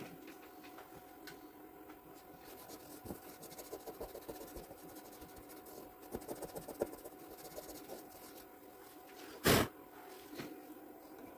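Faint rubbing and light ticks of a hand touching the freshly carved wooden relief and its sawdust, over a faint steady hum. A short, loud rush of noise comes about nine and a half seconds in.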